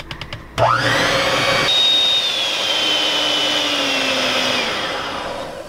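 Electric hand mixer whipping cold heavy cream toward soft peaks in a glass measuring cup. The motor starts about half a second in with a rising whine, then runs steadily, its pitch slowly dropping, and stops near the end.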